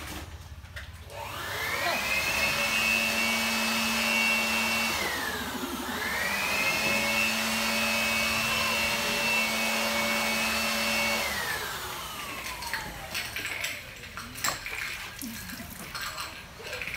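An electric motor's whine spins up about a second in, runs steady, dips and picks up again midway, then winds down about eleven seconds in. Short knocks follow near the end.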